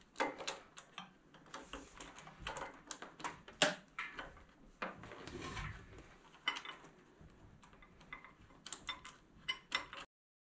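Irregular metallic clinks and knocks of steel hydraulic hose fittings being handled and threaded by hand onto a log grapple's rotator. The sound cuts off abruptly near the end.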